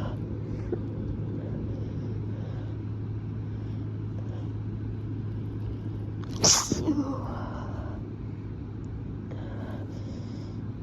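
A single strong human sneeze about six and a half seconds in, sudden and sharp, with a short tail after it. A steady low hum runs underneath.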